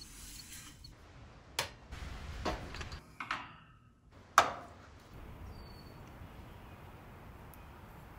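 Sparse sonification sound design turning HVAC sensor readings into sound: a few sharp struck pings with short ringing tails, the loudest about four and a half seconds in, then a faint steady hiss with two brief high chirps.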